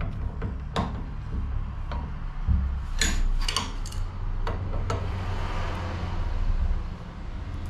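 Metal clinks and taps of a hand wrench against a brass fitting on a brake pressure protection valve clamped in a bench vise, half a dozen sharp separate clicks over a steady low hum.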